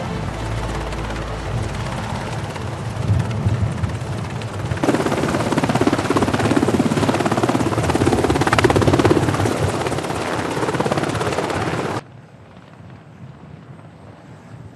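Navy Seahawk helicopters close overhead, the rapid chop of the rotor blades over turbine noise, as they hover with sling loads. It grows louder about five seconds in. About twelve seconds in it drops suddenly to a much fainter, distant helicopter sound mixed with wind.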